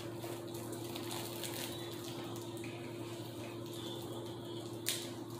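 A steady low hum over a faint hiss, with a single sharp click near the end.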